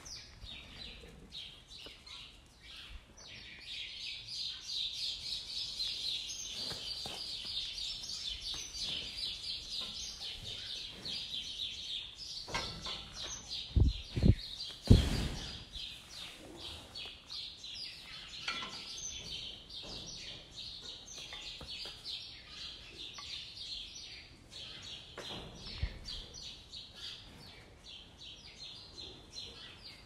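Dense, continuous chirping of many small birds. About halfway through there is a cluster of loud knocks, and a single one comes near the end.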